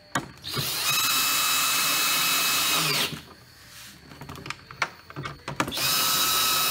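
Cordless drill/driver running a long extension bit to drive in the bolts that hold the model's engine mount in place. It spins with a steady whine for about two and a half seconds, stops, and starts again near the end.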